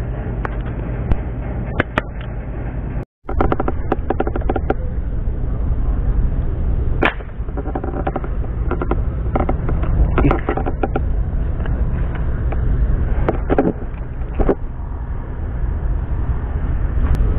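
Handling sounds of a fish-shooting gun and its plastic line spool: scattered clicks and sharp snaps, a quick run of clicking a few seconds in, and one louder crack about seven seconds in, over a steady low rumble.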